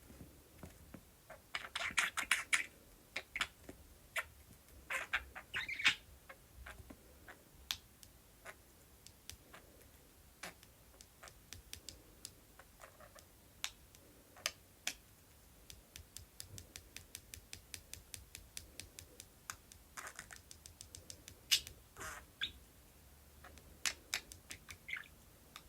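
Budgie tapping and pecking at a mirror with its beak in many sharp, irregular clicks, broken by a few short bursts of chirping chatter.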